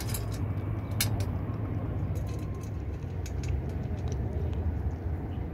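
A cat chewing and crunching dry kibble from a stainless steel tray: scattered short sharp clicks, the strongest about a second in, over a steady low rumble.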